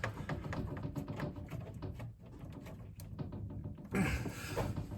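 Screwdriver turning screws into the puppet's mechanism: a run of small irregular clicks and scrapes, briefly louder near the end.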